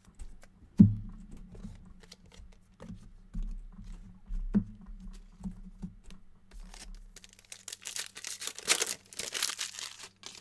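Small taps and clicks of trading cards and packs being handled on a table, with one sharp thump about a second in. From about seven and a half seconds in comes a crackling tear of a trading-card pack wrapper being ripped open.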